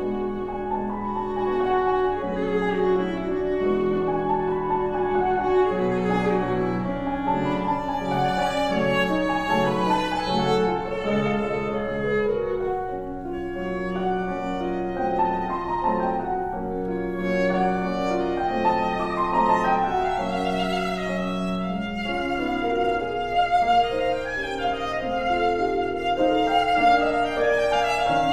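Viola and grand piano playing a classical sonata together: the bowed viola carries a sustained melody over the piano's accompaniment.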